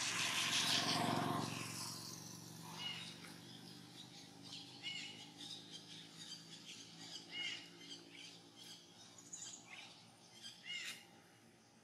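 Forest ambience: a loud rush of noise in the first two seconds, then a bird giving a short arched call every two to three seconds over a faint insect hiss and scattered small clicks.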